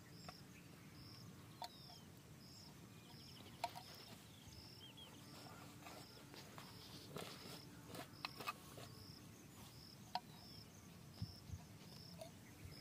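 Near silence: a faint insect chirping in a steady rhythm, about three short high chirps every two seconds, with a few soft clicks from hands handling the plastic pipe fittings.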